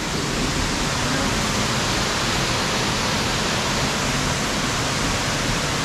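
Waterfall pouring, a steady, loud rush of falling water that doesn't change.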